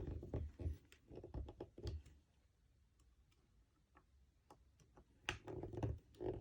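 Clicks, taps and light knocks of small wooden and metal parts being handled and fitted while a salt and pepper mill kit is assembled by hand. They come in two clusters, one in the first couple of seconds and another about five seconds in, with near quiet between.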